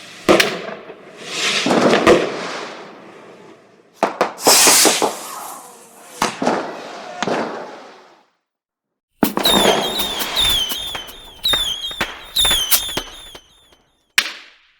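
Fireworks going off: sharp bangs, each followed by a crackling hiss. After a second-long break comes a rapid string of cracks mixed with whistling fireworks, their shrill whistles falling in pitch.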